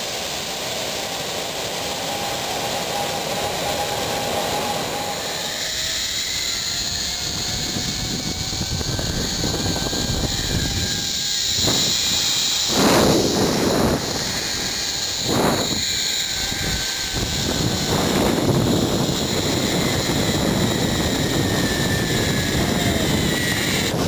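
Zipline trolley pulleys running along the steel cable: a steady rushing whir with a faint whine that slides in pitch, growing louder as the ride goes on.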